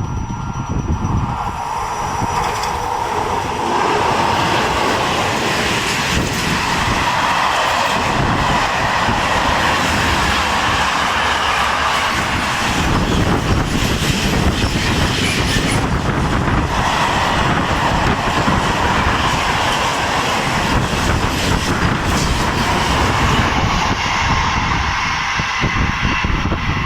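A train passing through the station without stopping: a steady loud rush of wheels on rail with a repeated clatter of wheels over the track, lasting the whole time.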